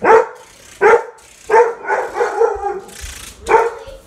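Pet dog barking repeatedly, loud sharp barks about once a second.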